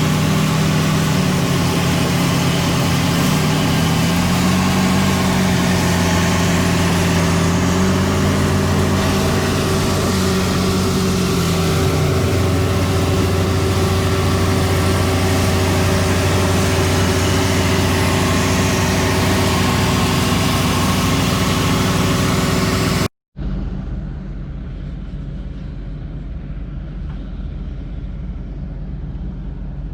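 A combine harvester running with a steady mechanical drone. About 23 seconds in, the sound cuts out for a moment and comes back as a quieter, duller drone of the same kind.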